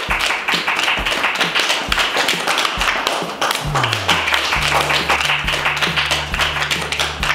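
A small group clapping in applause, over background music; a steady bass line with a regular beat comes in about four seconds in.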